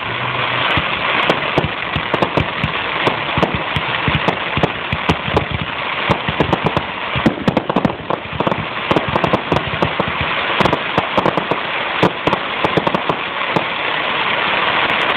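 Fireworks going off in a dense, continuous barrage: many sharp bangs and cracks overlapping a steady crackle.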